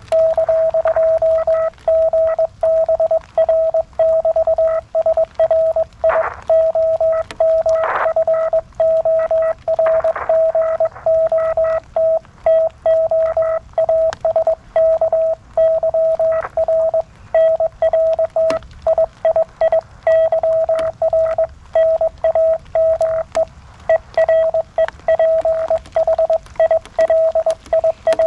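Morse code (CW) received on a (tr)uSDX QRP transceiver: a single beeping tone keyed rapidly on and off, carrying a message from VK2GBR apologising for forgetting to ask the operator's name and giving his own name, Philip, ending with "ar k". A few faint clicks sound in the first third.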